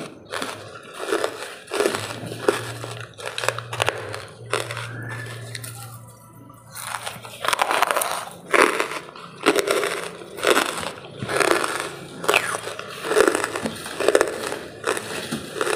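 Soft charcoal crunching in repeated brittle crunches, about one a second, with a quieter stretch in the middle.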